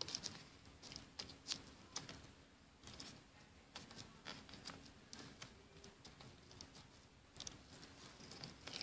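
Crunchy slime pressed and poked with fingertips: faint, irregular small crackles and clicks.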